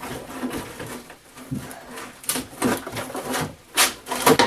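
Crunching, creaking and cracking of the camper's rotten, crumbling wooden structure being pulled apart by hand, with a few sharp cracks near the end.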